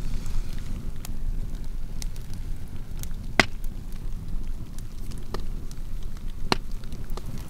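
Wood campfire crackling: scattered small snaps over a steady low rumble, with two louder pops, one about halfway through and one near the end.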